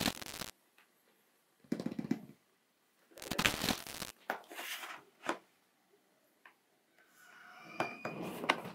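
Hands handling a cardboard shoe box: several short scuffs and rubs of cardboard, with a longer rub near the end.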